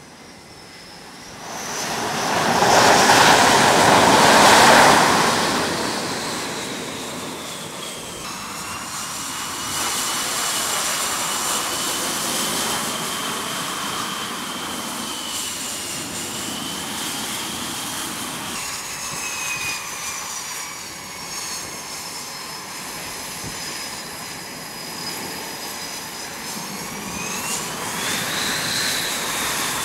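F/A-18 Super Hornet's twin turbofan jet engines roaring loudly for a few seconds as the jet lands on the carrier deck. The roar then settles to a steady jet whine whose high tones sag and rise as the aircraft taxis, with a rising whine near the end.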